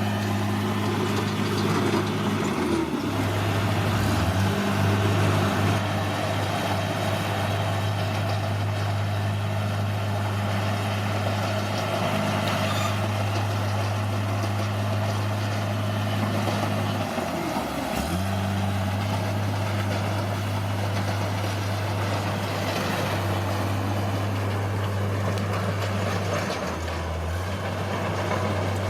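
Bulldozer's diesel engine running at a steady speed, its pitch dipping briefly three times: about three seconds in, around seventeen seconds, and near the end.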